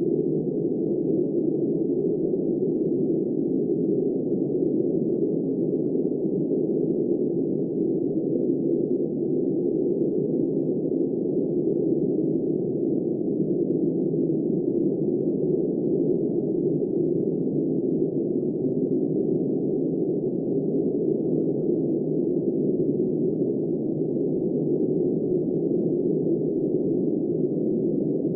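Steady, muffled low rushing noise of wind, with no hiss above it and no gusts: the level stays even throughout.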